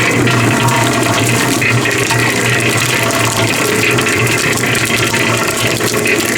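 Concrete mixer running with a steady motor hum, its turning drum churning wet sand with a rushing, sloshing noise.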